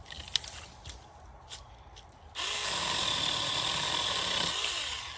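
Saker 4-inch cordless mini electric chainsaw starting a little over two seconds in and running steadily for about two and a half seconds as it cuts through a small sapling near the ground, then winding down near the end. Before it, a few light clicks of brush being handled.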